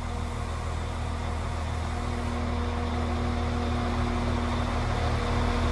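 Class 196 diesel multiple unit standing with its diesel engines idling: a steady low hum with a constant drone, slowly growing a little louder.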